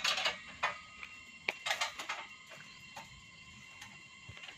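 Sharp metallic clinks and taps of steel greenhouse-frame pipes and fittings being handled and fitted together, several close together in the first two seconds and fewer after.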